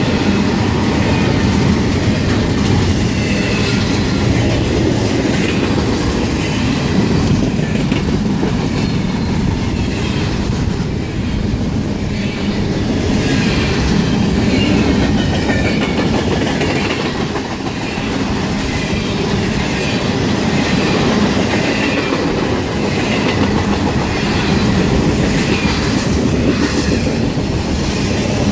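Intermodal freight cars carrying double-stacked containers and trailers rolling past close by: a steady loud rumble of steel wheels on rail with a rhythmic clickety-clack of the trucks.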